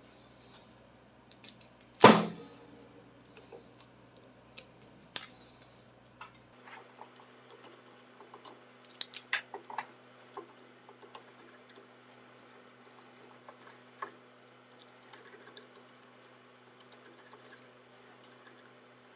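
Metal parts and tools being handled at a workbench. There is a loud clank that rings briefly about two seconds in, then scattered small metallic clicks and rattles.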